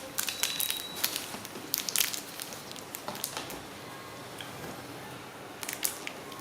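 Close crinkling and crackling of plastic packaging being handled and opened, with quick clicks clustered in the first two seconds and again near the end.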